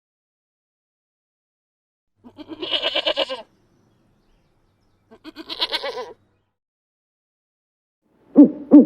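Two bleats from a goat or sheep, each about a second long with a quavering, wavering pitch, separated by silence. Near the end a much louder, lower animal call with rising and falling pitch cuts in.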